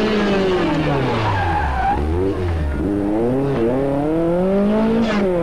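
Lancia 037 Group B rally car's supercharged four-cylinder engine working hard. The pitch falls as it slows into a corner for about two seconds, then climbs again as it accelerates away, with a short break in the climb at a gear change.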